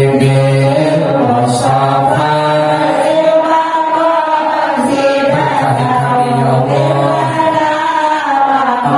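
Islamic devotional singing (shalawat) into a microphone: voices holding long, drawn-out notes that slide from pitch to pitch, with no drumming.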